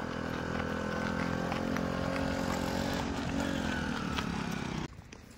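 A motor vehicle's engine running steadily close by, dipping slightly in pitch about three seconds in, then cutting off abruptly near the end.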